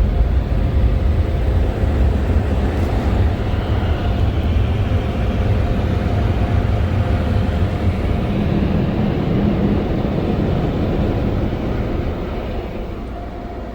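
Belanger Airstream car-wash dryers blowing onto the car, heard from inside the cabin: a loud, steady rush of air over a low rumble with a faint hum. It eases off over the last couple of seconds as the car passes out of the blowers.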